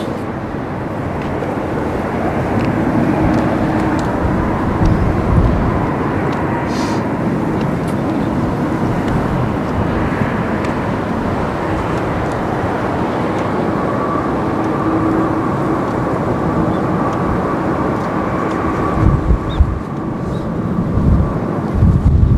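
Airbus A340-300 taxiing, its four CFM56 turbofans giving a steady jet whine over a broad rush of engine noise. Wind buffets the microphone near the end.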